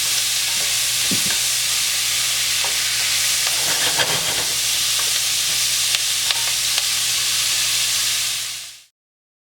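Onions, red pepper and celery sautéing in rendered salt pork fat: a steady sizzle with a few brief clicks, fading out to silence shortly before the end.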